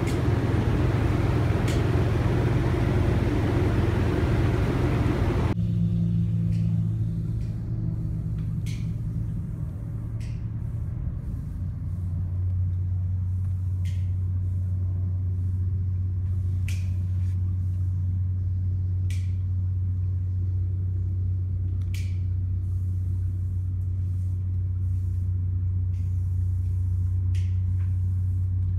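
A steady low machine hum. A loud rushing noise over it cuts off suddenly about five seconds in, and a few short, sharp high ticks come at irregular intervals after that.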